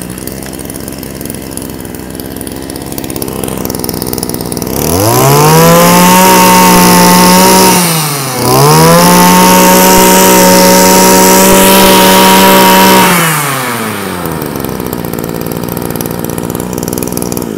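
Kioritz (Echo) SRE2310 23cc two-stroke brush cutter engine, pull-started and catching at once, then idling. It is revved up to a high, steady full-throttle pitch twice, with a brief dip between the runs, then drops back to idle and is shut off at the very end.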